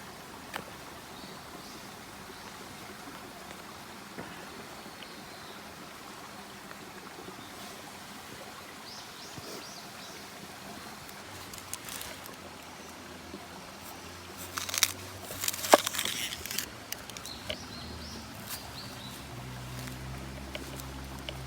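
Outdoor ambience: a steady rushing hiss with a few faint high chirps, and a cluster of sharp clicks and knocks about fifteen seconds in.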